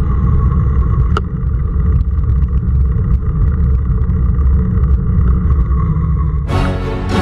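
Low rumble of wind buffeting an action camera's microphone while cycling along a road, mixed with road and car-traffic noise. Background music comes in near the end.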